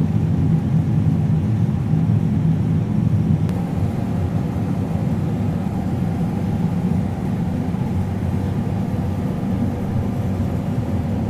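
Combine harvester running with a steady low drone, easing slightly about three and a half seconds in.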